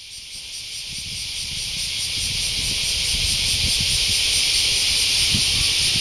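Large brown cicada (aburazemi) singing: a continuous high, hissing buzz that grows louder over the first two seconds, then holds steady.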